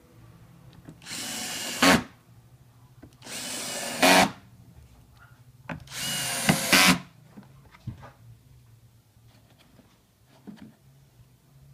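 Cordless drill-driver running three times, about a second each, driving screws into a plastic housing; each run ends in a brief louder spurt as the screw goes home. Light handling clicks follow.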